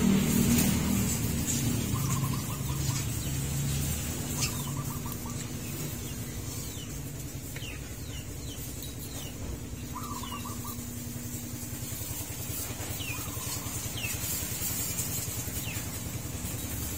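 A motor vehicle's engine running steadily nearby, loudest in the first seconds and then easing off, with repeated short, falling bird chirps over it.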